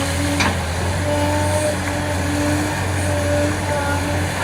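Large hydraulic excavator's diesel engine running under load, with a pitched whine that comes and goes in spells of about a second. A sharp clank sounds about half a second in.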